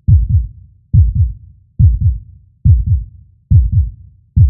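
Deep heartbeat sound effect: steady lub-dub double thumps at about seventy beats a minute.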